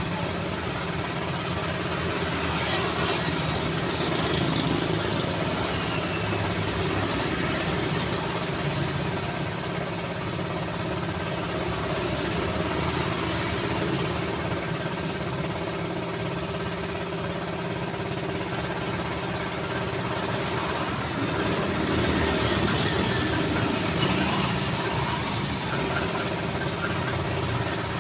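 City road traffic: a steady wash of vehicle engines running and idling, with passing traffic, swelling slightly a few seconds in and again near the end.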